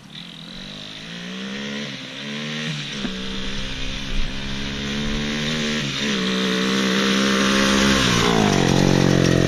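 200 cc dirt bike engine running as the bike is ridden, growing steadily louder as it comes closer, its pitch dropping and climbing again several times as the rider works the throttle and gears.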